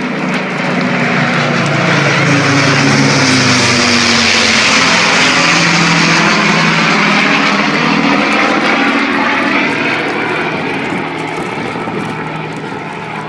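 Panavia Tornado jet passing: the engine noise builds over the first couple of seconds, is loudest in the middle with its low tones sliding down as it goes by, and fades away over the last few seconds.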